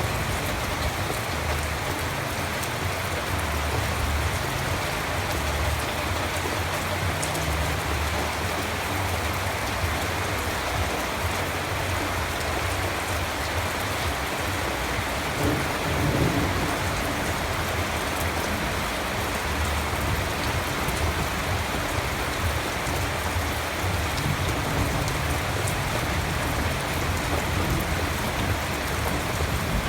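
Steady, heavy rain falling, an even hiss, with a brief low rumble about halfway through.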